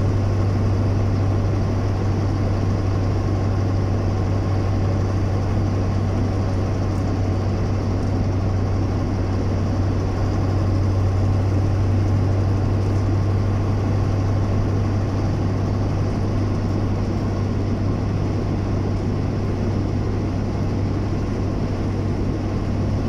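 A vehicle being driven at a steady speed, heard from inside the cabin: a constant low engine hum under a steady rush of road and tyre noise.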